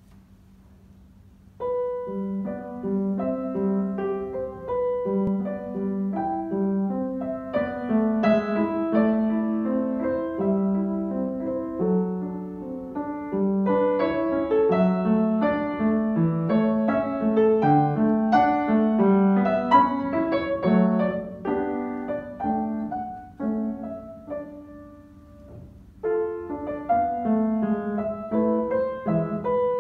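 Upright acoustic piano played solo, a single pianist playing a piece from sheet music. The playing begins about a second and a half in, grows soft and nearly dies away a few seconds before the end, then starts again.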